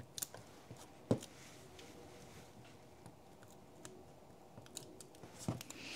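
Faint clicks and paper rustles as a plastic crafting pick tool lifts the release liner off tear-and-tape adhesive on a cardstock box tab, with one sharper tap about a second in.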